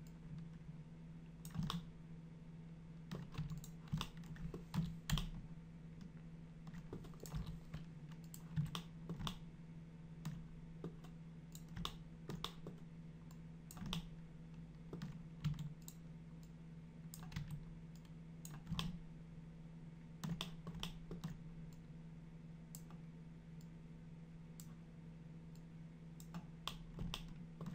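Irregular clicks from a computer keyboard and mouse, a few every couple of seconds, over a steady low hum.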